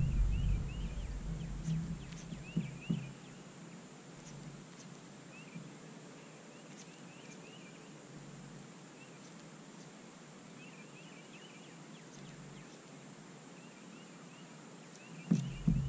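Birds calling in short clusters of high chirps, on and off, behind a faint steady hiss. A few low knocks and rumble come in the first three seconds, and a louder low rumble starts just before the end.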